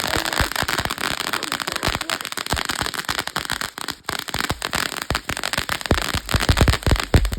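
Ground firework fountain going off, a continuous hiss packed with rapid crackling pops, with heavier, deeper pops near the end.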